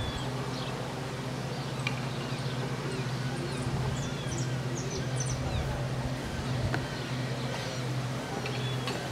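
Small birds chirping and twittering over a steady low hum.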